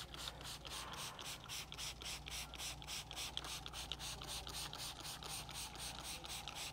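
Trigger spray bottle pumped quickly and repeatedly, misting peroxide carpet treatment onto a carpeted car floor mat: an even run of short hissing spritzes, about five or six a second.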